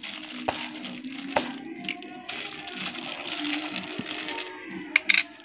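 Clear plastic bag crinkling and rustling as small toy parts are handled inside it, with a few sharp clicks, the loudest about five seconds in.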